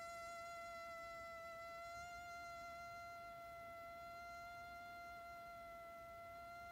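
Rubber balloon vibrating and giving off a steady, high-pitched buzzing tone, its pitch wavering only slightly.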